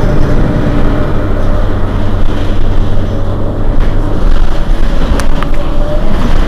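Mercedes-Benz Citaro city bus's rear-mounted diesel engine idling steadily while the bus stands at the stop, with a couple of short clicks about five seconds in.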